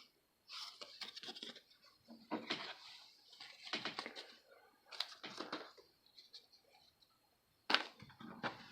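Baseball trading cards being handled and flipped through: about five short scraping, rustling passes of card stock sliding against card stock, each with small clicks, separated by brief pauses.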